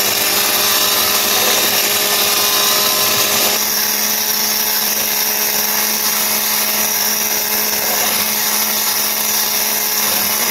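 Electric hand mixer running steadily, its twin beaters whipping cream in a glass bowl. The motor's tone steps slightly lower about a third of the way in.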